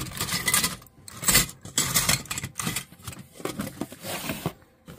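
Bracelets clinking and jangling together as they are handled, with irregular clicks and scrapes.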